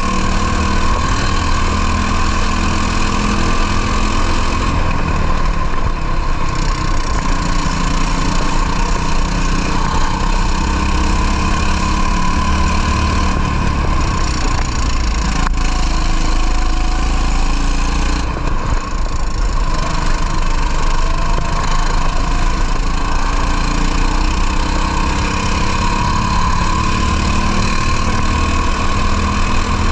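Racing kart engine running hard, heard onboard, its note rising and falling as the kart laps the circuit. The high end drops away briefly a few times, about five seconds in, at the midpoint and around eighteen seconds, then picks up again.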